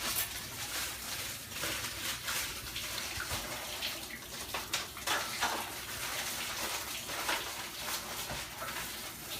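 Water running from a tap as hands are washed under it, a steady rush with small splashes scattered through it.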